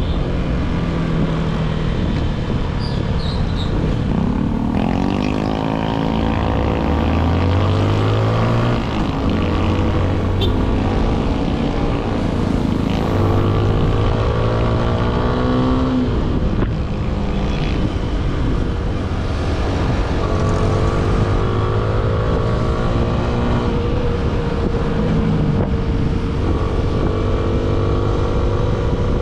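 Yamaha Sniper 155 motorcycle's single-cylinder engine through its stock exhaust, ridden on the road. The revs climb and drop back several times as it accelerates, over a steady rush of wind and road noise.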